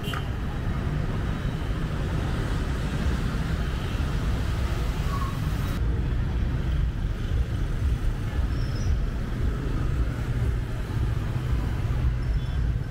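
Steady road traffic on a city street: a continuous rumble of passing vehicles, its higher hiss thinning out about six seconds in.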